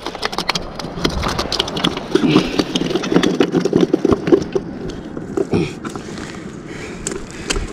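Close handling noise from a body-worn camera: clothing rustling, with a rapid scatter of light clicks and knocks as the angler moves about and handles his rod on the rocks.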